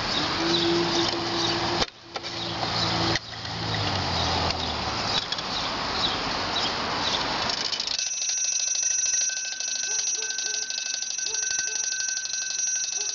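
Antique mechanical spit roast's brass gear train running: a fast, steady clatter of meshing teeth. About eight seconds in the sound thins to a fine rapid ticking with a steady high ring over it.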